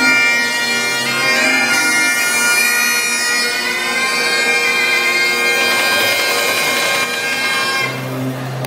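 Great Highland bagpipes playing a tune: the chanter melody moves over the steady drone of the pipes.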